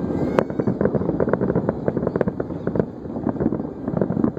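Fireworks display heard from a distance: many booms and cracks following each other several times a second, overlapping into a constant rumble, with one sharper crack about half a second in.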